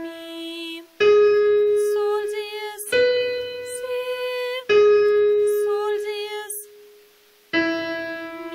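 Piano sounding the E major tonic triad one note at a time, E–G♯–B–G♯–E, to set the key for sight-singing. Each struck note rings and fades over about two seconds, and a voice sings along on each pitch.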